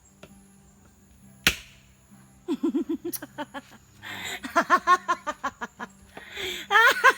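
A single sharp click, then a person's voice in quick runs of short pitched pulses, about eight a second.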